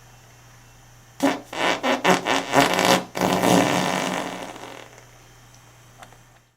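Fart sound: a quick run of short sputtering blasts about a second in, then a longer one that trails off. A steady low hum runs underneath.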